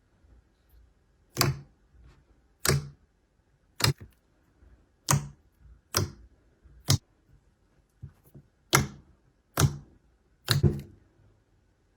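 Slime being pressed and poked by hand, its trapped air pockets giving sharp, wet popping clicks. There are about nine pops, roughly one a second.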